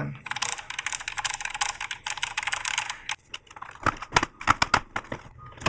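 Rapid clicky typing on the mechanical keys of a vintage Apple ADB extended keyboard for about three seconds. A few separate, louder knocks and clacks follow as the keyboard is gripped and handled.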